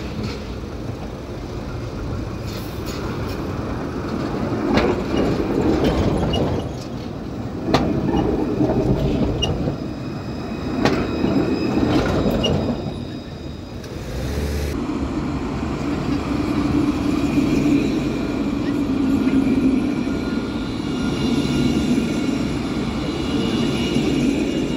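Alstom Citadis trams running on street track. During the first half, one rolls close past with repeated sharp clacks as its wheels cross the switches and crossings. After a cut about fifteen seconds in, another tram runs past with a steady rumble and a high whine from its electric drive.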